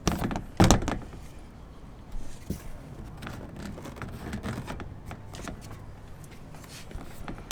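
Handling clatter of hand tools and parts: a couple of sharp knocks at the start, then scattered light clicks and rustles, with another knock at the end.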